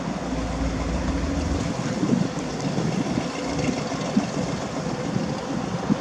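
The 350 cubic-inch V8 of a 1969 GMC C10 pickup running at low speed as the truck drives and turns, its exhaust pulsing unevenly.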